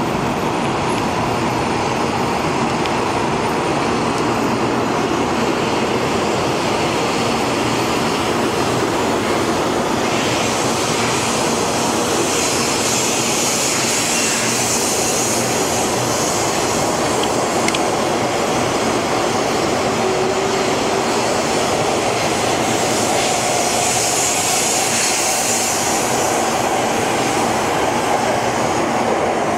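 Taiwan High Speed Rail 700T train running past close by along a station platform: a steady rush of wheels and air as the coaches go by, with the high hiss swelling twice.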